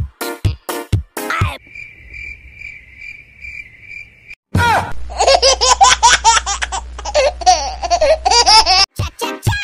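A children's song beat is cut off by a steady cricket-like chirping trill, pulsing about five times a second, for about three seconds. After a brief break, loud high-pitched giggling over a low hum follows, and the beat returns near the end.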